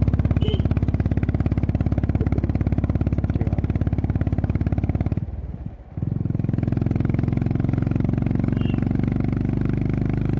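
Honda CB350RS single-cylinder engine and exhaust under way, a steady pulsing thump. It drops away sharply for under a second about five seconds in, then picks up again and runs steadily.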